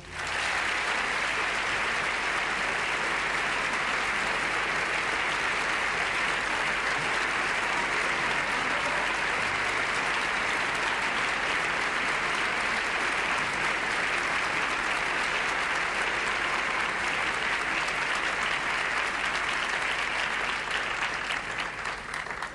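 A theatre audience applauding steadily after the orchestra's final chords, tapering off near the end.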